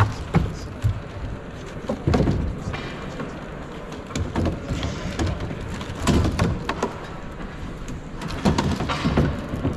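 A four-legged robot's feet knocking and thumping irregularly on the course surface as it walks.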